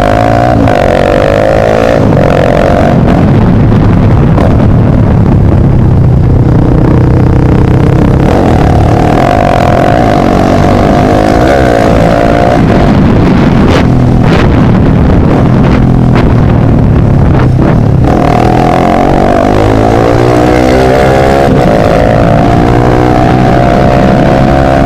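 Motorcycle with an open exhaust riding under load: the engine note climbs repeatedly as it accelerates and drops back at each gear change, loud throughout.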